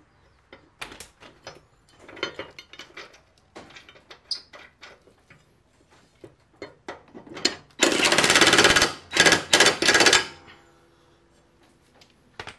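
A steel mower blade and its bolt clinking against a mower-deck spindle as the blade is fitted. About eight seconds in, a Ryobi cordless impact tool hammers the blade bolt tight in about three bursts over two and a half seconds.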